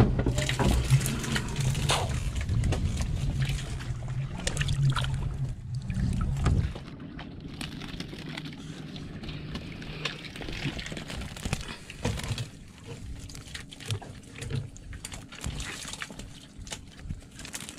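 Seawater sloshing and dripping as a wet mesh fish trap and its catch of fish and crabs are handled and emptied, with small knocks and rattles of the trap. A low steady hum underlies the first several seconds and stops suddenly about seven seconds in.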